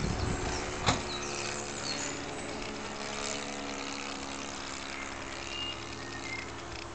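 Motor of a radio-controlled model Cessna 177 Cardinal droning at a steady pitch in flight, with one sharp click about a second in.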